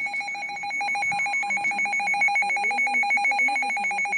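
NOAA weather radio receiver sounding its alert alarm, a shrill electronic beeping on two pitches that pulses rapidly and evenly from about a second in. The alarm announces an incoming tornado warning broadcast.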